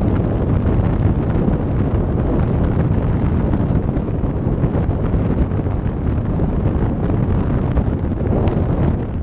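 Kit car driving along at a steady pace, with wind buffeting the microphone over the rumble of tyres and engine.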